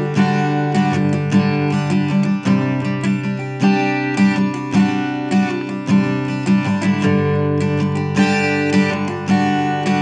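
Instrumental acoustic guitar music: chords strummed and plucked in a steady rhythm.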